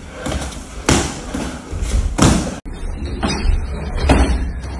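Punches in boxing gloves landing on a training partner's raised gloves and on focus mitts: four separate hits, roughly a second apart.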